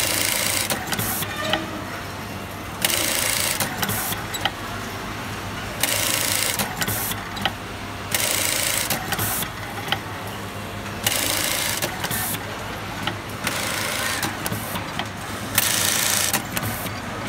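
Juki industrial button-sewing machine stitching on buttons in a run of short bursts, each about a second long and starting with a click, repeated every two to three seconds: one burst per button sewn. A steady low hum runs underneath.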